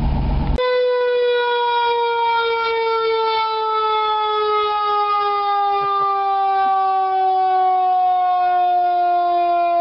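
1950 Bickle-Seagrave fire truck's mechanical siren sounding one long, steady wail whose pitch slowly falls as it winds down. About half a second in, the engine running before it cuts off suddenly and the siren takes over.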